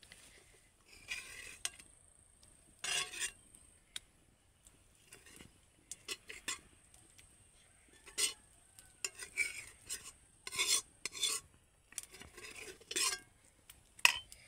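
A metal spoon scraping and scooping through cooked khichuri in a metal pan, in irregular short strokes with an occasional sharper clink.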